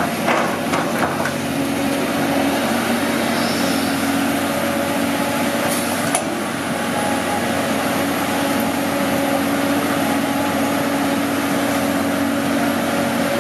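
Caterpillar 320D hydraulic excavator working, its diesel engine running steadily with a constant hum. There are a few short knocks in the first second and a sharp knock about six seconds in.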